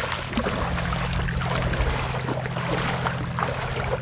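Rubber boots wading through shallow water, splashing with each step in an irregular series, over a steady low hum.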